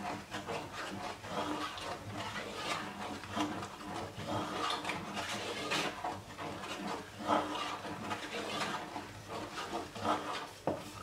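Wooden spoon stirring thick cornmeal porridge in a stainless steel pot, in uneven repeated strokes about one or two a second, as the porridge thickens and is worked free of lumps.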